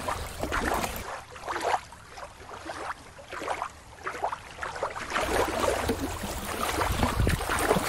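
Shallow water lapping and sloshing, with small irregular splashes; quieter for a few seconds in the middle.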